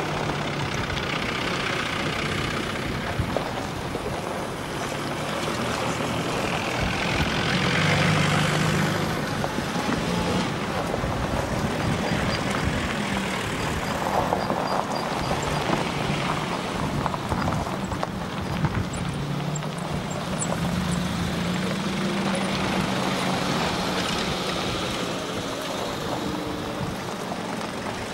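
Four-wheel-drive off-road vehicles driving past one after another, their engines swelling and fading as each goes by, loudest about eight seconds in and again a little past the twenty-second mark.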